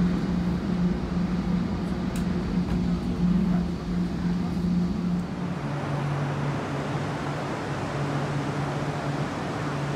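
Running noise heard inside an SGM Sprinter electric multiple unit on the move: wheels on rail with a steady low motor hum. About halfway through the hum drops to a lower, uneven drone and a brighter hiss takes over, in a station beside a standing SGM train.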